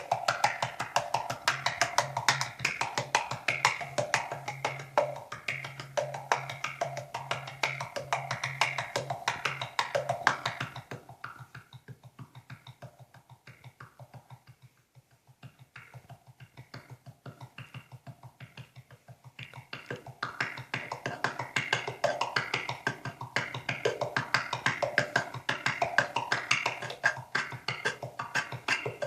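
3D-printed tongue drum, picked up by a contact mic inside it and played through an effects processor and speakers: a fast, dense run of struck notes. The playing drops much quieter for several seconds midway, then builds back up.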